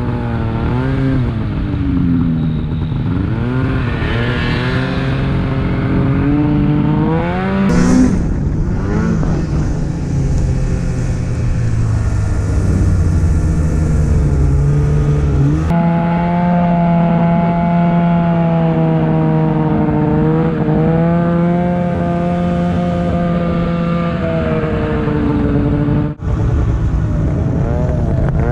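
Snowmobile engine running hard, its pitch rising and falling with the throttle over the first half, then holding a steadier, higher note from about 16 s on. The sound cuts out for a moment near the end.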